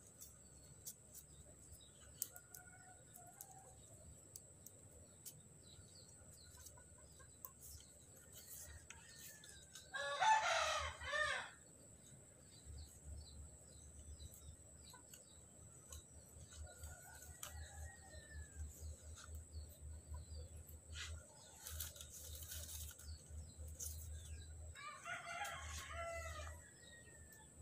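A rooster crowing twice: a loud crow of about a second and a half about ten seconds in, and a weaker one near the end, with a few faint chirps in between.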